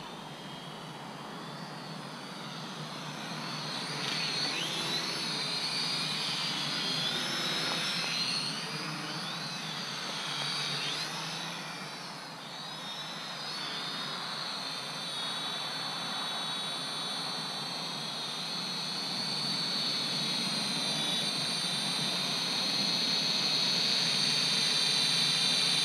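Helicute H818HW quadcopter's motors and propellers whining in flight. The high pitch wavers up and down as it is manoeuvred, and it grows louder toward the end as it comes in close.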